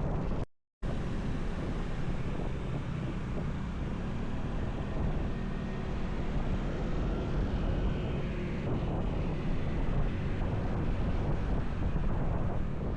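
Wind buffeting the camera microphone while a motorcycle is ridden, a steady heavy rumble with the engine and road noise underneath. The sound cuts out completely for a moment about half a second in.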